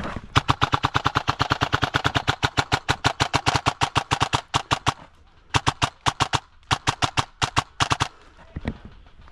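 Custom Paragon Armory airsoft electric gun (AEG) firing on full auto: one long rapid burst of about four and a half seconds, then a pause and three short bursts.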